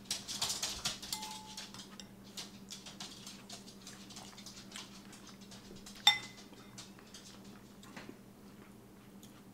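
Metal spoons clinking and scraping against ceramic bowls as two people eat soup-like dal. Small scattered clicks, with one sharp ringing clink about six seconds in.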